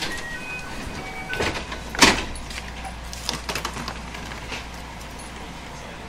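Sliding passenger doors of a JR West 221 series electric train closing: a short run of electronic chime tones, then knocks and a loud thump as the doors shut about two seconds in, followed by a low steady hum.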